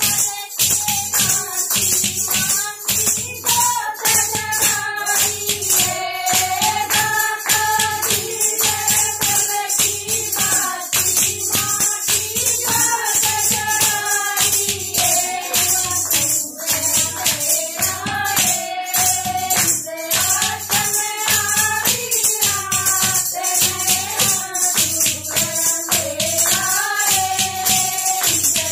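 A woman leads a Haryanvi devotional bhajan, the other women joining in. Hand claps, jingling clappers and rattles, and a clay pot drum keep a quick, steady beat.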